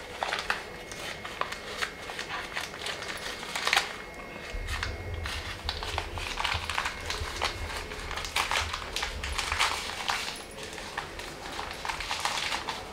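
Newspaper wrapping crinkling and rustling in many short crackles as it is unwrapped by hand. A low rumble runs underneath for several seconds in the middle.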